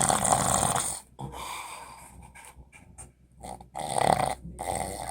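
A man snoring loudly with a harsh, rasping, animal-like snore: one long snore ends about a second in, followed by softer breathing, then two more loud snores near the end.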